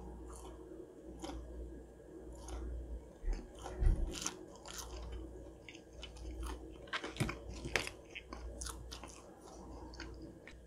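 A person chewing crisp fried food, with a run of small, irregular crunches and clicks.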